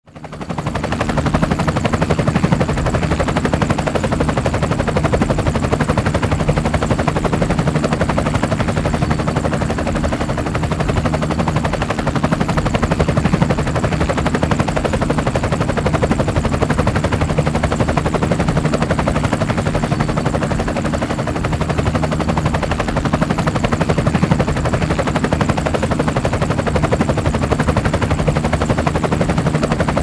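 Helicopter running steadily, its rotor blades beating in a rapid, even chop over a steady engine drone, with a faint high whine. It fades in over the first second.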